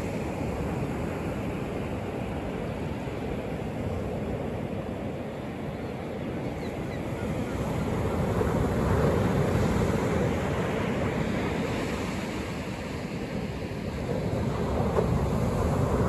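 Atlantic Ocean surf breaking and washing up a flat sandy beach: a steady rush of water that swells as waves break about halfway through and again near the end.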